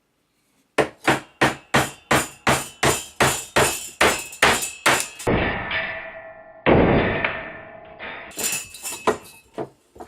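A mallet hammering repeatedly to knock out a broken drill bit jammed in a hole, at about three sharp blows a second. The blows give way to two longer ringing sounds that fade out, and then the blows start again.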